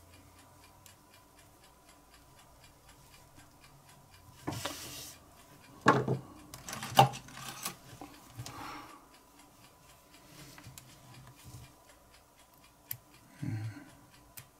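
Small lighter parts and a metal forceps being handled on a work surface: a few short clicks and rubbing sounds, the sharpest about six and seven seconds in, over a faint, steady, evenly spaced ticking.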